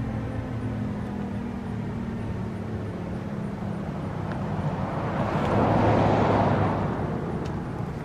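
Federal Signal Thunderbolt 1000T siren winding down at the end of its alert, its low tone sliding slowly downward and fading. Around five seconds in, the road noise of a passing vehicle swells and fades.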